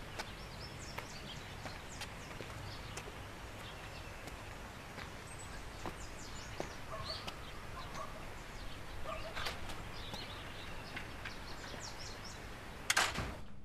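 Birds chirping and calling in short, scattered notes over a steady background hiss. A brief, loud noise comes near the end.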